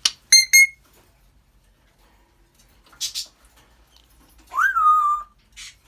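African grey parrot whistling: two short, sharp high notes at the start, a brief breathy hiss in the middle, and near the end a longer whistle that rises and then holds level.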